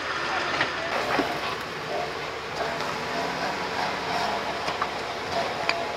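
Jeep crawling over a rough off-road trail: a steady rumble of rattling and creaking with scattered small knocks and clicks, the engine barely heard.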